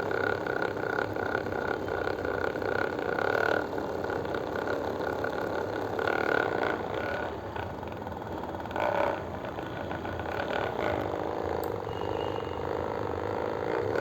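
A steady machine hum with a thin high whine that fades about three and a half seconds in and returns near six seconds.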